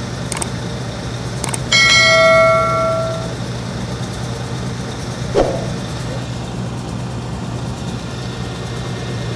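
Two mouse-click sound effects, then a single notification-bell chime about two seconds in that rings for a second and a half. Under them a diesel engine runs steadily, with one knock about five seconds in.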